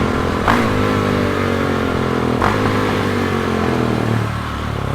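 KTM 690 SMC's single-cylinder engine running through an Akrapovič exhaust while the bike is ridden, its pitch slowly falling. Two brief sharp cracks come about half a second and two and a half seconds in.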